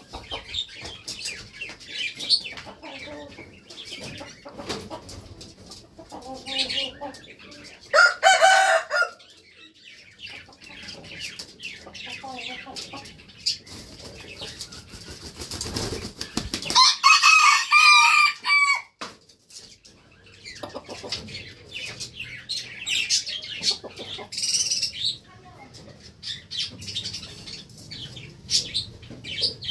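Rooster crowing loudly twice, a short crow about a third of the way in and a longer one of about two seconds a little past the middle, with fainter chicken clucking and chirping throughout.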